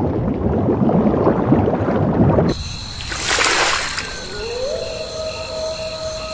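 Underwater bubbling and gurgling sound effect, which cuts off about two and a half seconds in and gives way to a logo sting: a whoosh, then an electronic tone that glides up and holds steady, with a high steady tone above it.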